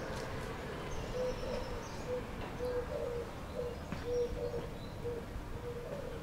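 A dove cooing: a run of short, even coos at one steady pitch, repeating about every half second, with a few faint high bird chirps over a steady outdoor hiss.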